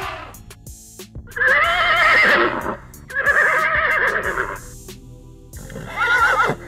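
A horse whinnying three times, each call a shaky, wavering neigh lasting about a second, the last one shorter, over steady background music.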